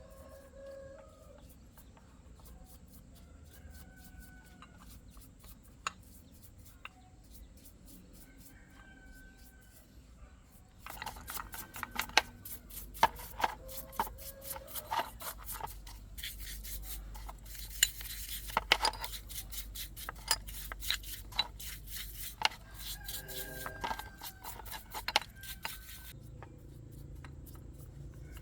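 Chickens clucking and a rooster calling. About ten seconds in, a long stretch of sharp metal clinks, taps and scrapes starts, as of hand tools working on metal parts, then dies down near the end with the birds still calling.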